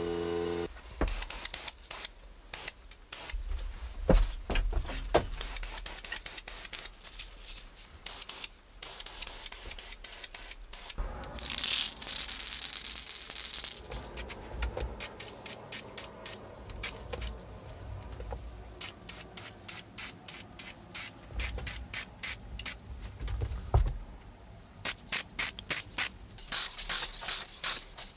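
Aerosol spray paint can hissing in one strong burst of about two seconds midway through. Around it, the can rattles and clicks, with quick, even runs of about three strokes a second near the end, as when it is shaken and its mixing ball knocks inside.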